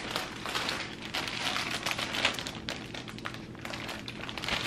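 Clear plastic flower sleeve around a bouquet of tulips crinkling as it is handled, a steady run of irregular rustles and crackles.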